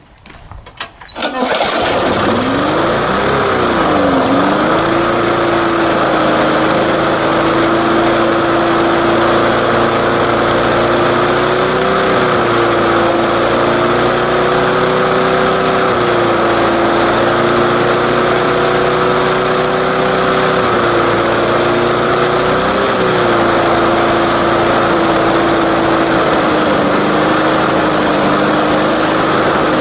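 Briggs & Stratton 3.75 HP lawn mower engine, warmed up and fuelled with straight paint thinner, starting about a second in. Its speed swings up and down for the first few seconds, then it runs steadily, with small rises and dips in speed a few times.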